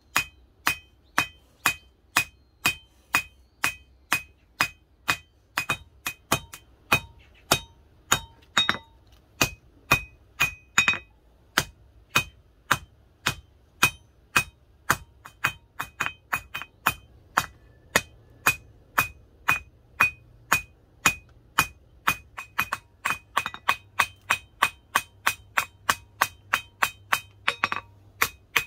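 Hand hammer striking red-hot truck leaf-spring steel on a steel anvil to forge a knife blade. The blows come steadily at about two to three a second, each with a bright metallic ring.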